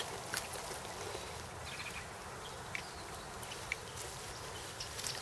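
Quiet outdoor ambience with a few faint, short chirps, and a sharp knock at the very start.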